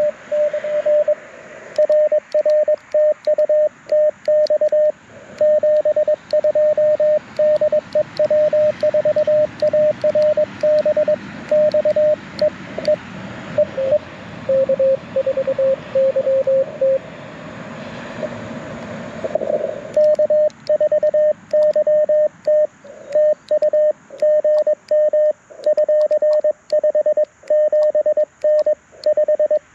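Morse code (CW) from a Mountain Topper MTR4B V2 QRP transceiver played through a JBL Go 2 speaker: a single high tone keyed on and off in dots and dashes over band hiss. A second signal at a slightly lower pitch is heard briefly midway, and from about twenty seconds in the keying goes on with the hiss gone.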